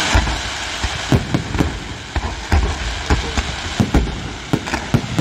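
Fireworks display: aerial shells bursting in a rapid string of booms, about two a second, over continuous crackling and hiss from the glittering effects.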